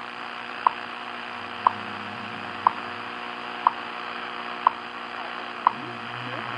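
WWV time-signal second ticks, received on shortwave at 10 MHz: a short, sharp tick once a second, six in all, over a steady hiss of static from the Grundig radio's speaker.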